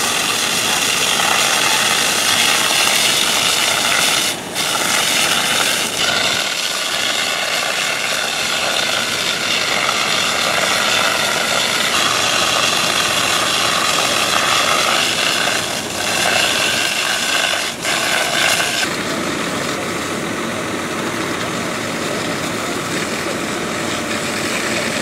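Fire engine running at high revs to drive its pump, a loud steady drone with a whine above it. It breaks off briefly a few times, and about nineteen seconds in it turns a little quieter and duller.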